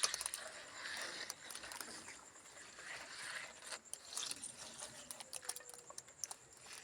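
Faint irregular clicks and light scraping of a small spoon working wet mortar as a gap is filled.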